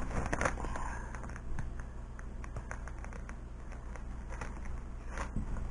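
Clear transfer tape being peeled slowly off a vinyl decal on a sign: a run of small, irregular crackling ticks, with a couple of slightly louder snaps about half a second in and near the end.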